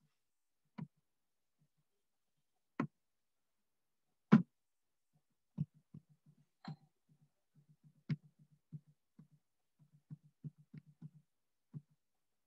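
Computer mouse in use: a few separate sharp button clicks, then from about halfway on, runs of quick small ticks as the scroll wheel is turned.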